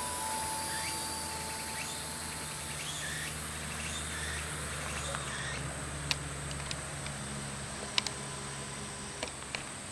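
Outdoor rural ambience with insects chirping steadily, a faint low hum underneath, and a few sharp clicks in the second half.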